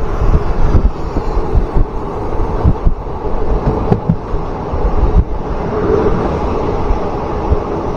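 Passenger train running at speed, heard from an open coach doorway: the steady noise of wheels on the rails mixed with wind buffeting the microphone in uneven low gusts.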